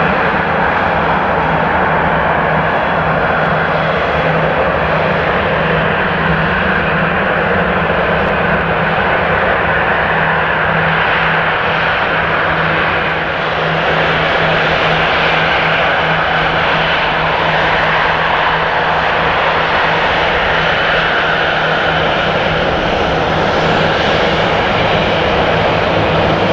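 Boeing 737-800's two CFM56-7B27 turbofan engines running at taxi power as the jet rolls onto the runway: a steady jet rush with a low, even hum under it.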